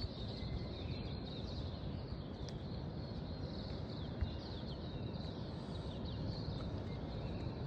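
Small surf breaking as a steady low rush, with many small birds chirping over it.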